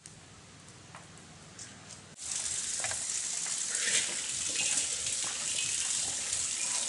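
A wood fire burning quietly in a brick stove, with a few faint crackles. A little over two seconds in, louder wet, slapping and rustling sounds begin as pieces of snakehead (murrel) fish are tossed by hand in turmeric in a steel bowl.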